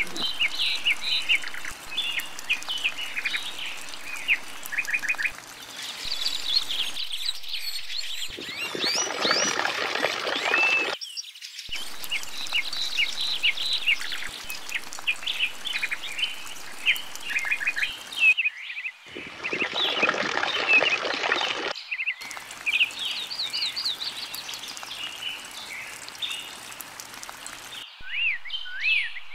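Many small birds chirping and singing in quick short rising and falling calls, broken off by a few abrupt cuts.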